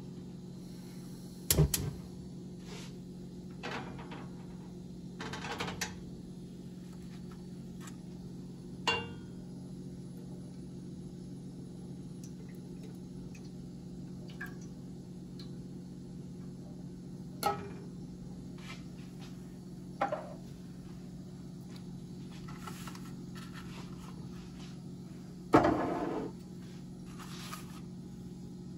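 Kitchenware handled on a gas stove: about half a dozen short knocks and clinks of a saucepan, a can and utensils, the loudest near the end with a short ring, over a steady low hum.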